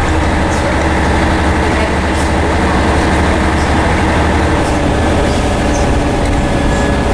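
Scania N113CRB bus's rear-mounted 11-litre six-cylinder diesel and Voith automatic gearbox pulling the bus along at a steady speed, heard inside the passenger saloon as a continuous drone mixed with road noise and faint body rattles.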